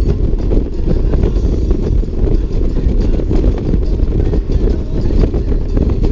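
Touring motorcycle running at highway speed, its steady engine rumble mixed with heavy wind rush over the microphone.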